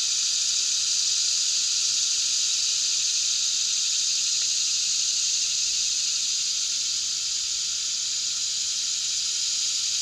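Jetboil backpacking stove's gas burner hissing steadily, its cup of water and coffee grounds coming up to a boil.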